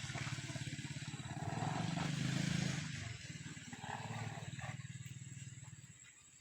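Cat purring: a low, even, rapidly pulsing rumble that swells for a second or so and fades near the end.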